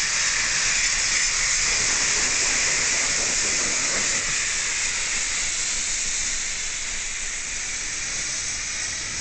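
Merchant Navy class steam locomotive 35028 Clan Line passing slowly with a loud, steady hiss of escaping steam, which eases a little about four seconds in.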